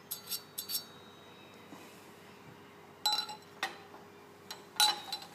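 Small metal parts of a Peerless 820 transaxle's shift linkage clinking as they are handled: a few sharp clinks near the start, more about three seconds in, and the loudest group near the end, each with a brief metallic ring.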